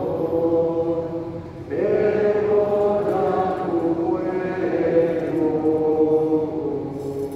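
Slow liturgical chant sung at Mass, with long held notes, a brief break about two seconds in, and a fade near the end.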